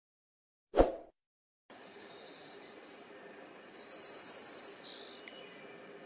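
A single sharp click under a second in. Then a faint steady outdoor background in which a warbler sings one short, high, buzzy trilled phrase that ends on a lower buzz, about midway.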